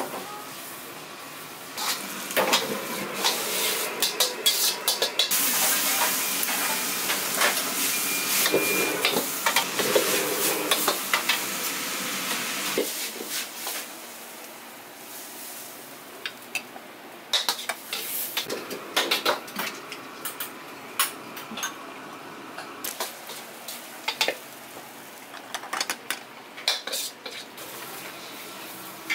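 Food sizzling loudly in a hot pan while a metal utensil stirs, scrapes and clanks against it. About halfway through the sizzling stops, leaving scattered clinks and clatter of utensils and dishes.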